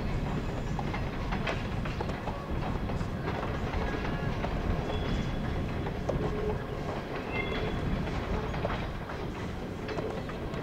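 A 381-series electric express train running along the line at a distance: a steady low rumble with faint clicks, with a few short bird chirps over it.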